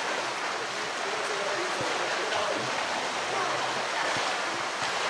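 Steady rush and splash of water in a polar bear's pool as the bear moves through it, with a few faint knocks.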